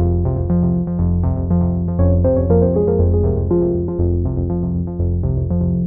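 Background music: a synthesizer and keyboard tune of short notes at a steady, quick pace over a repeating bass line.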